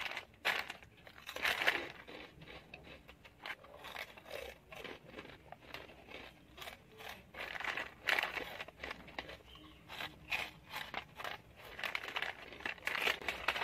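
A crinkly foil snack packet rustling and crackling as it is handled and tipped up to the mouth, with the crunching of Kurkure corn puffs being eaten fast. The crackling comes in irregular flurries, loudest about a second and a half in, around the middle, and near the end.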